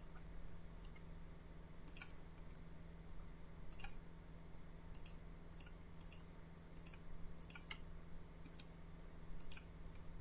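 A string of sharp, high-pitched clicks, irregularly spaced about every half second to two seconds, over a faint steady low hum.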